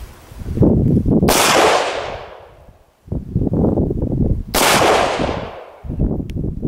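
Two shots from an AR-15 rifle, about three seconds apart, each with a sharp crack followed by about a second of fading echo.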